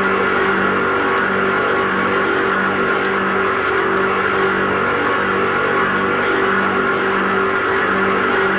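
Steady, loud mechanical drone, engine-like, with a low hum that pulses in an even rhythm a little more than once a second.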